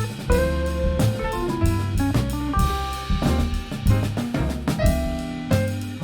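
Instrumental small-band jazz: a drum kit keeping time under a walking bass line, with held melody notes and chords above.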